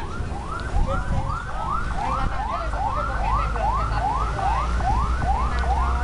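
Electronic yelp siren whooping quickly up and down, about three times a second, over the low rumble of passing traffic.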